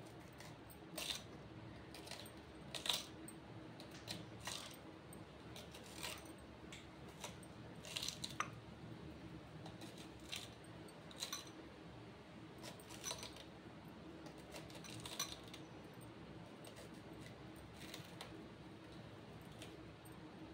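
Scattered light clicks and clinks, about one every second or two at irregular spacing, from hands slitting a peeled ambarella with a small knife while bangles on the wrists move. A faint steady hum lies underneath.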